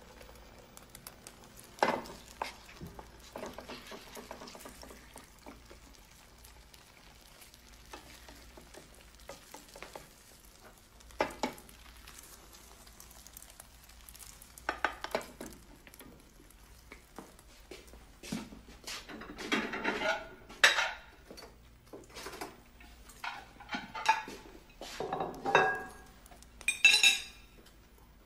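Eggs cooking in a frying pan on a gas stove, with a metal utensil stirring and scraping the pan. A few sharp knocks of pan and utensil come early, and the clatter grows busier over the last ten seconds.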